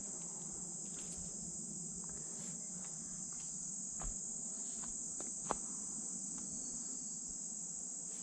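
Steady high-pitched insect chorus from a marsh, unbroken throughout, with a couple of faint knocks in the middle.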